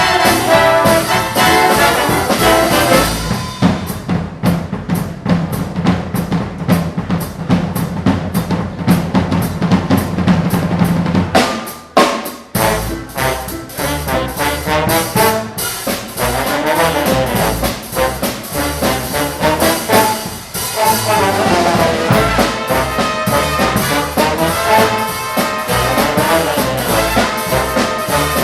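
Live swing big band playing, with trumpets, trombones and drum kit. In the middle the drums carry a passage of rapid strokes over a held low note; after a brief dip the brass comes back in.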